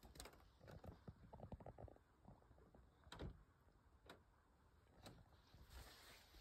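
Near silence, with faint scattered crunches and creaks of footsteps on a debris-strewn wooden floor and a soft thump a little after three seconds in.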